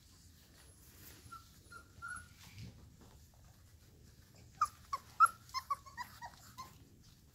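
Airedale Terrier puppies, about four and a half weeks old, yelping in play. A few faint whines come first, then about halfway through a quick run of about ten short, high yips over some two seconds.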